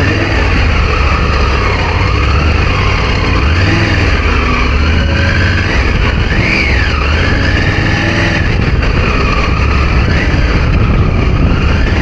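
Triumph Tiger 900's three-cylinder engine running at low revs with a steady low rumble, pitch wavering a little, as the motorcycle is ridden slowly over slippery wet grass and rock.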